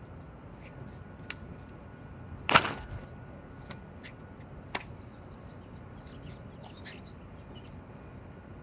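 Steady outdoor background hiss with scattered faint ticks, and one loud, sharp knock about two and a half seconds in, with two smaller clicks around it.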